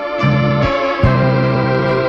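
Background music: sustained keyboard chords over a bass line that changes note about every half second to second.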